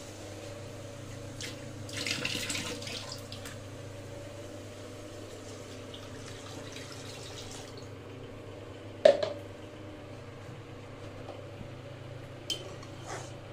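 Water being poured into a steel kadai of fried spice paste and oil, splashing into the pan over a steady low hum. About nine seconds in there is one sharp, loud metal clank, with a lighter knock near the end.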